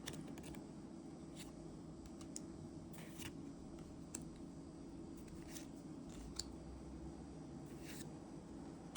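Faint, scattered rustles and soft clicks of trading cards being handled, about eight in all, over a low steady hum.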